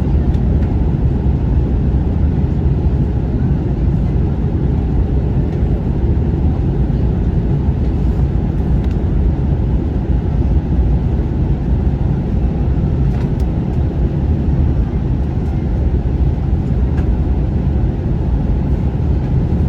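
Airliner cabin noise: a steady, even low rumble of jet engines and rushing air heard from inside the passenger cabin.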